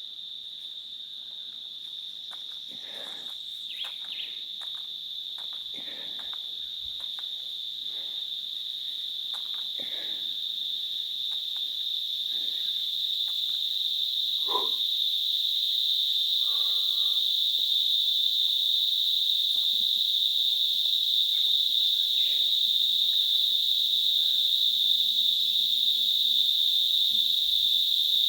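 Continuous high-pitched insect chorus, steady in pitch and growing gradually louder, with a few faint short chirps and knocks underneath.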